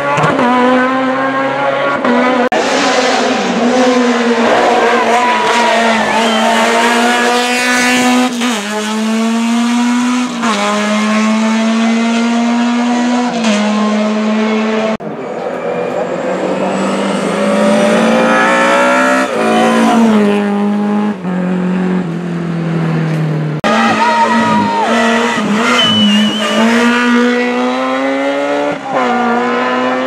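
Race car engines at full throttle, revving hard up through the gears, the pitch climbing and dropping back at each gear change; several cars pass in turn.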